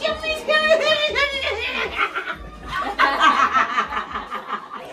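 Several voices talking over one another, with chuckling and laughter.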